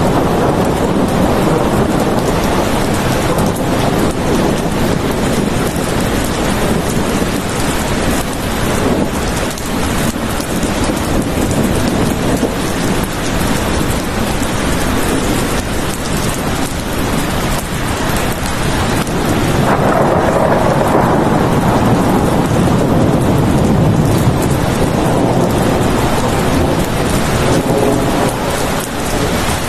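Steady heavy rain falling in a dense, even hiss. A low rumble of thunder swells and fades about two-thirds of the way through.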